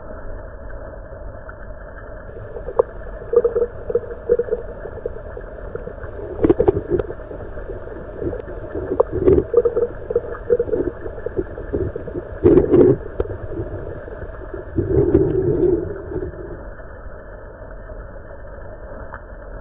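Underwater-style ambience: a steady low rumble with irregular gurgling bursts and a few sharp clicks, busiest from about three seconds in until about sixteen seconds.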